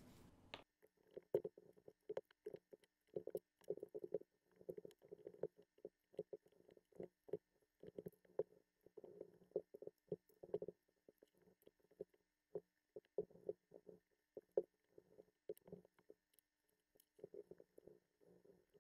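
LEGO Technic plastic pieces knocking and clicking as they are pulled apart and set down on a mat, sped up. Faint, muffled, irregular small knocks come several times a second with short pauses between.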